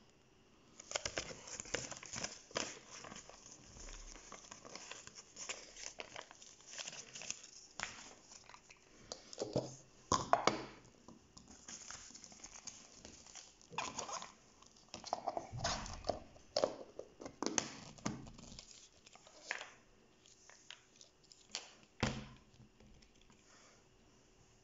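Paper leaflet and toy packaging being handled: irregular crinkling and rustling with sharp crackles, starting about a second in and stopping shortly before the end.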